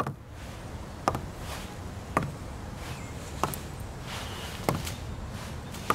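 Heeled boots stepping slowly on wooden decking: six sharp, evenly paced heel clicks, about one every second and a bit, over a steady low background rumble.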